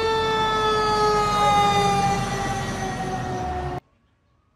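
Fire engine siren sounding one long steady tone that slowly falls in pitch, over the low rumble of the truck's engine. It cuts off suddenly near the end.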